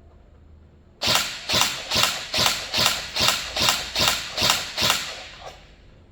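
INF M4 14.5-inch electric airsoft rifle firing about ten single shots in quick succession, roughly two and a half a second, each a sharp snap from the gearbox and piston, with a faint click after the last. This is a test fire after a circuit repair: the shots come one per trigger pull rather than as a runaway full-auto burst.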